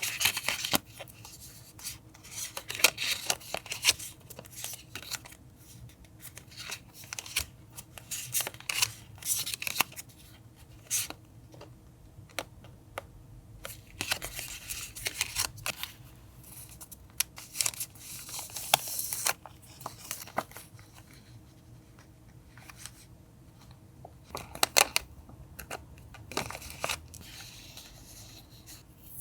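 Scissors cutting paper in short, irregular runs of snips, with paper rustling and handling between cuts.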